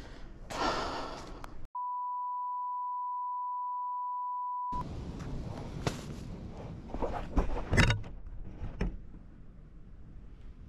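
A steady 1 kHz censor bleep, lasting about three seconds, with all other sound muted beneath it. Before it comes a short breathy rush, and after it rustling and a few sharp knocks.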